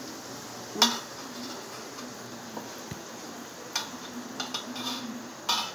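A wooden spatula and a metal spoon knock and scrape against a steel pan and a plate as food is served out. There is a sharp knock about a second in, a few small clicks around four to five seconds, and another knock near the end.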